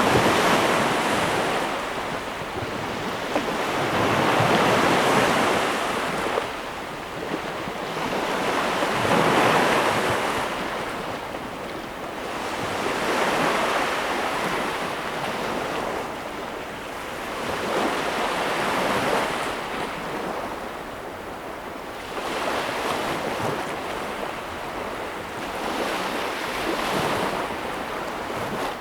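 Ocean waves breaking and washing up on a shore, one surge every four to five seconds, each swelling and then fading into a hiss.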